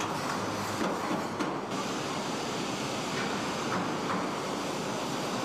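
Steady mechanical clatter of a car assembly line, a dense, even noise with a few faint clicks through it.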